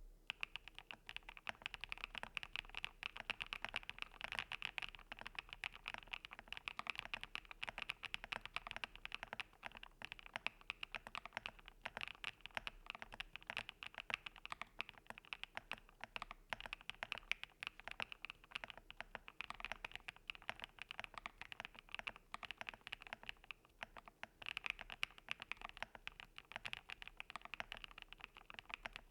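Fast, continuous typing on an Akko MU02 mechanical keyboard with lubed HMX Caramel Pudding switches, an FR4 plate and rubber keycaps: dense keystroke clicks that start suddenly and run on without pause.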